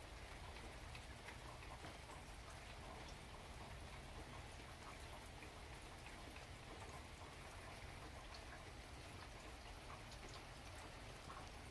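Near silence: a faint steady outdoor hiss with scattered soft ticks.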